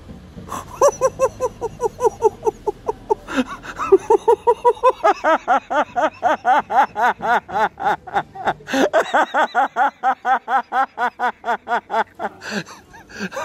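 Hard, breathless laughter: a long run of quick, high-pitched laughs, about four or five a second, getting denser and higher about five seconds in.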